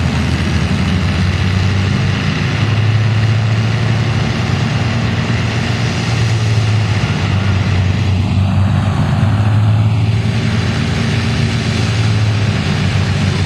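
Piston engines of a P-51 Mustang and a Japanese Zero fighter running at taxi power: a steady, deep engine drone that swells slightly at times.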